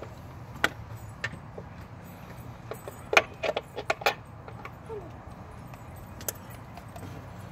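Light clicks and rattles of hard parts being handled as an ignition coil is fitted back onto its spark plug in an engine bay. The loudest burst is a quick run of sharp clicks about three to four seconds in, over a steady low hum.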